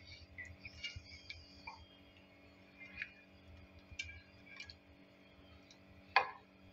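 Silicone spatula stirring a thick milk mixture in a nonstick frying pan: soft scraping with scattered light clicks and taps against the pan, and a louder knock about six seconds in.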